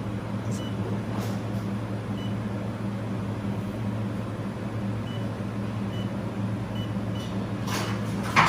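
Steady low hum of a running laser welding machine, with faint short high beeps every second or so and a brief noisy clatter near the end.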